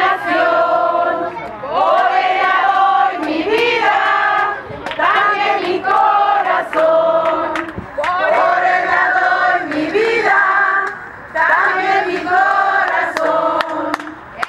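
Crowd of protesters singing together in unison, in repeated phrases with held notes and short breaks between them.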